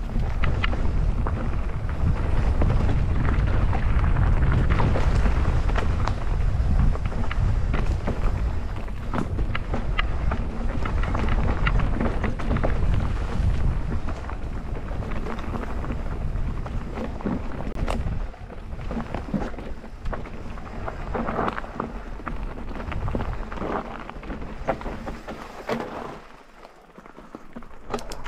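Mountain bike ridden over a rough trail: wind rumbling on the microphone over a constant clatter and ticking of tyres and bike on the ground. The rumble eases in the second half and drops away briefly near the end.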